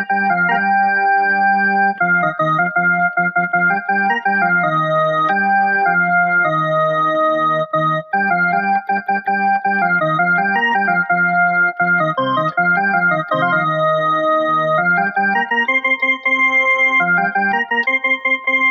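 Small electronic keyboard played by hand: a slow melody of held notes over lower sustained notes, each note steady without fading, in an organ-like voice.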